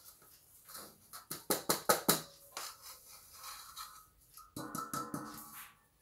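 Stainless steel mixing bowl knocked repeatedly against the rim of a wire-mesh flour sieve: a quick run of sharp metallic taps. A few seconds later comes a single metal clank that rings briefly before dying away.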